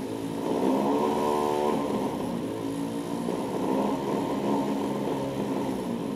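Handheld electric starter spinning a small rotary engine's output shaft to crank it, a steady motor whine that is loudest in the first couple of seconds.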